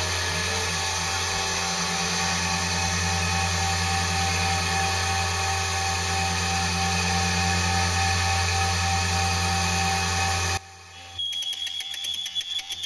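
Spindle motor of a CNC3018 converted to a lathe, running steadily as it spins the workpiece. It cuts off abruptly about ten and a half seconds in, and is followed by a quieter rapid, even ticking with a high whine from the stepper motors moving the tool.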